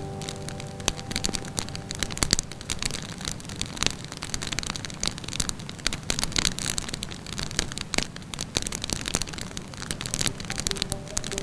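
Wood fire crackling in a fireplace, with a steady run of sharp pops and snaps over a low rumble. Soft held music notes die away in the first second and return near the end.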